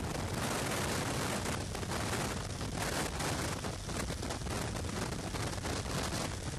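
Rushing wind buffeting the helmet-camera microphone at the open door of a jump plane in flight, mixed with the plane's engine noise.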